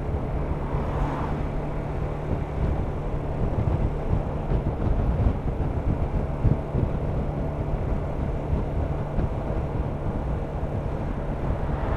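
Kymco Downtown 300i maxi-scooter's single-cylinder engine running while riding, a steady low hum under continuous road and wind rumble.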